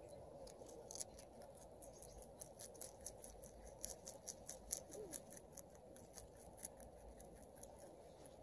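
Rabbit chewing leafy greens close up: a fast run of crisp crunching clicks, several a second.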